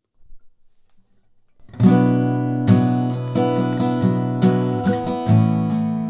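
Acoustic guitar recorded through a condenser microphone with no processing. Faint handling knocks come as the guitar is picked up, then strummed chords start about two seconds in and ring on.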